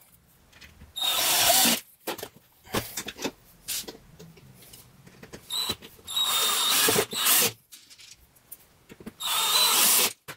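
Cordless drill-driver running in three short bursts with a steady whine, driving screws through a concealed hinge's mounting plate into a fibreboard wardrobe door. Small clicks come between the bursts as the screws and hinge are handled.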